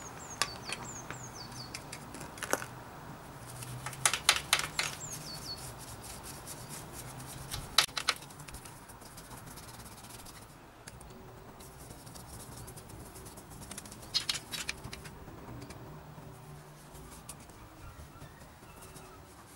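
A brush scrubbing a bicycle frame with white spirit: a few short spells of scratchy rubbing with gaps between. A bird chirps a few times near the start.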